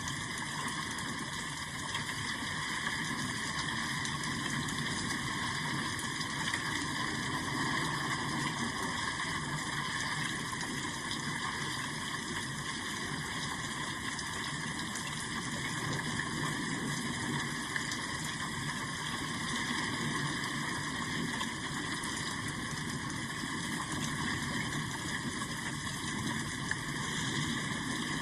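Steady rain: a continuous even hiss of falling rain with a faint patter of drops, unchanging throughout.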